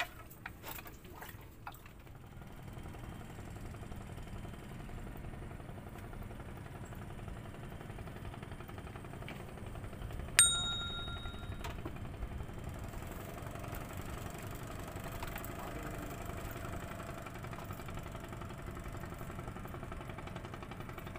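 A single sharp metallic ding about halfway through, ringing with several high tones for a second or so, over a steady low engine-like rumble.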